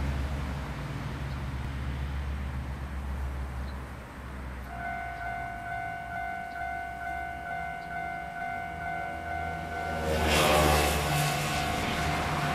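A low mechanical rumble, joined about five seconds in by a steady, horn-like tone held at one pitch to the end, with a loud rushing noise swelling up about ten seconds in.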